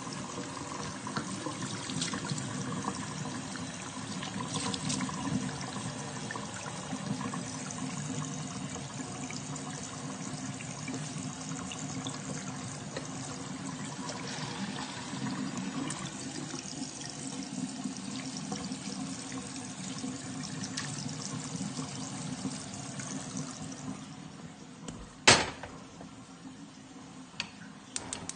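Tap water running into a stainless steel kitchen sink while blue crabs are rinsed and scrubbed by hand. The water dies away near the end, followed by one loud knock and a few light clicks as a gas stove knob is turned.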